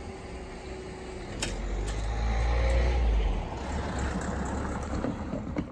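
A car drives past close by over the level crossing. Its engine and tyre rumble swell to a peak about two to three seconds in, then ease off. Two sharp clicks come as it approaches.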